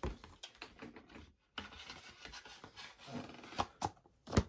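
A DVD and its plastic case being handled as the disc is put back in: fumbling and rubbing sounds with scattered small clicks, and a few sharper clicks near the end.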